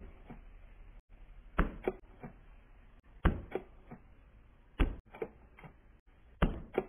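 Slow, evenly spaced thuds, one about every second and a half, each followed by two or three fainter echoing hits.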